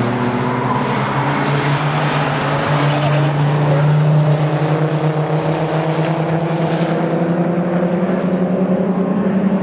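Engines of historic touring race cars running hard at high revs as they lap the circuit. The engine note climbs and is loudest about four seconds in as a car passes close, then holds steady.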